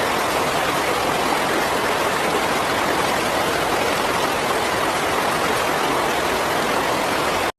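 Steady rushing water, like a river or waterfall, with an even roar that holds level and then cuts off suddenly near the end.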